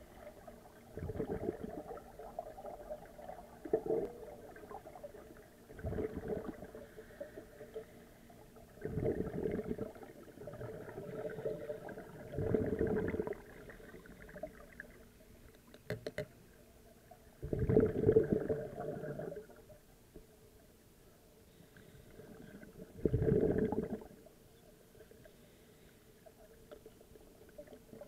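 Exhaled breath bubbling out of a scuba regulator underwater: low bursts of bubbles every few seconds, each lasting a second or two.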